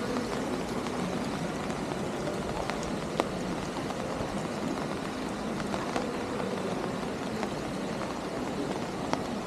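Outdoor city street ambience: a steady wash of noise with faint distant voices and three short sharp clicks spread through it.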